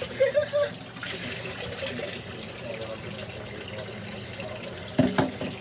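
Kitchen tap running steadily into the sink, with short louder sounds just after the start and about five seconds in.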